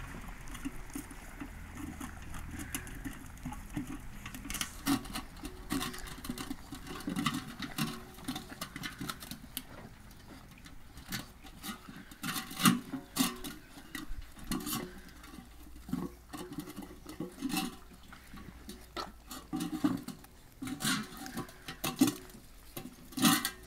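A litter of puppies eating together from a steel bowl: a busy, irregular run of wet lapping and chewing sounds with scattered sharp clicks, growing louder towards the end.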